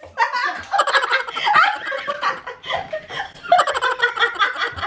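Hearty laughter from a woman, breaking into rapid pulses in several long fits with short breaks between them.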